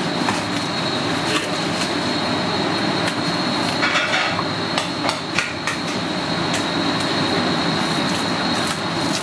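Commercial kitchen ambience: a steady hum of kitchen equipment with a thin high whine, and scattered irregular knocks and clatter from work at the counter.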